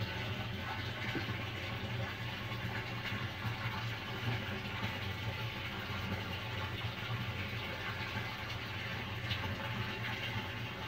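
Aquarium filter pump running with a steady low hum, with the hiss of water moving through the tank.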